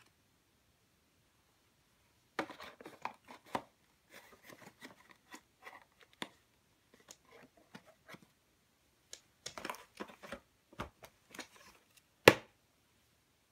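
A toddler handling small toys and objects: clusters of light taps, scrapes and rustles, with one sharp knock near the end, the loudest sound.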